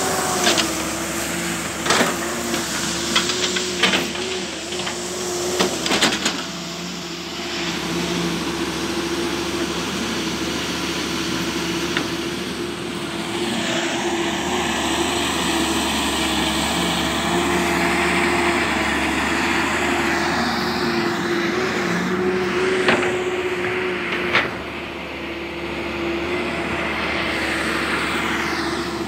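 Halla 130 wheeled excavator running steadily while digging, a continuous engine drone with a held tone. Several sharp knocks come through it, the last two near the end.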